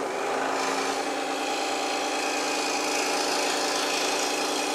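DeWalt DW788 scroll saw starting up abruptly and running steadily, its blade cutting wood, with a steady hum underneath.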